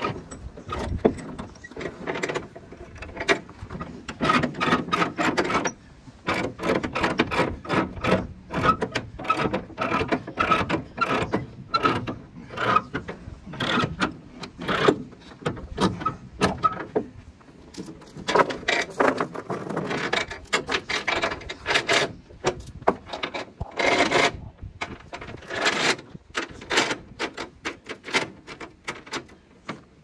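Ratchet chain binder being cranked tight on a tie-down chain, its ratchet clicking in quick runs with short pauses between strokes, with the steel chain links jangling.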